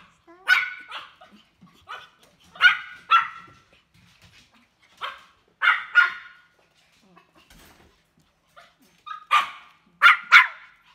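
A dog barking repeatedly: single barks and quick pairs with pauses between them, and a quiet spell of a couple of seconds past the middle before three more barks near the end.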